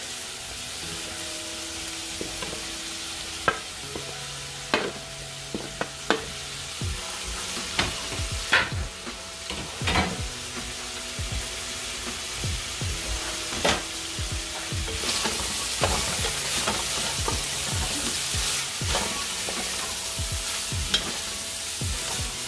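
Shredded cabbage and stir-fry vegetables sizzling in a frying pan on high heat, tossed with a wooden spatula that knocks and scrapes against the pan a dozen or so times. The sizzle grows louder about two-thirds of the way through.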